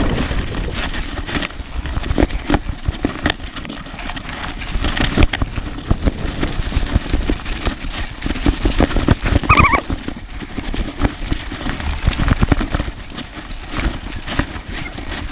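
Irregular knocking and rattling of a Thrill Ravage 4.0 hardtail mountain bike on rough, dry dirt trail, over a low rumble of wind on the camera's microphone. A brief squeak about nine and a half seconds in.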